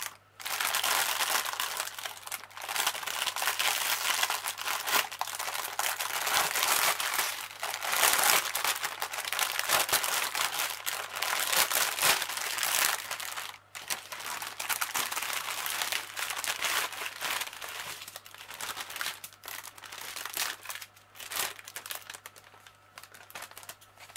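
Clear plastic bags crinkling and rustling as they are handled and opened, with the small plastic packets of diamond-painting drills pulled out and shuffled. There is a brief pause about 13 seconds in, and the rustling is lighter near the end.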